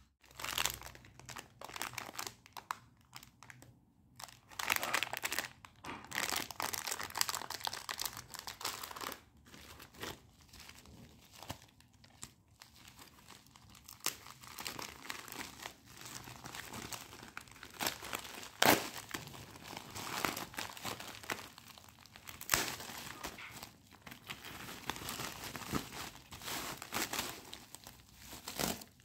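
Packaging being handled and opened, crinkling and tearing irregularly, with a few sharper crackles, the loudest a little past the middle.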